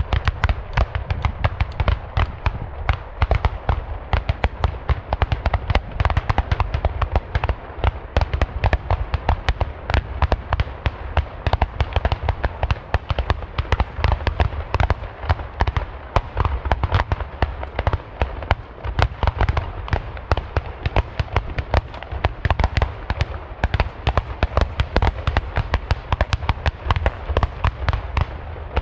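Black-powder salute guns (Böller) firing in a rapid running series, several sharp bangs a second without a break.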